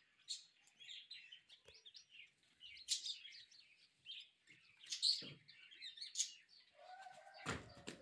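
A chorus of small birds chirping and twittering throughout. Near the end a louder held call and a single thump stand out.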